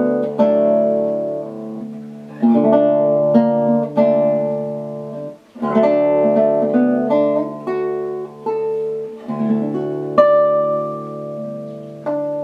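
Solo nylon-string classical guitar played fingerstyle: slow phrases of plucked chords and melody notes left to ring and fade. There are brief breaks about five and nine seconds in, and a bright chord about ten seconds in rings on.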